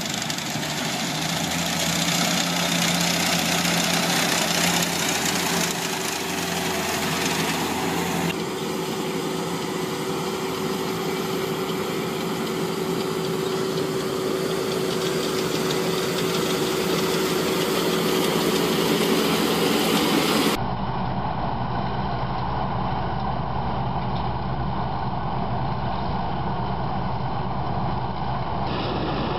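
Farm machinery engines running steadily, in three separate recordings that change abruptly about 8 and 20 seconds in.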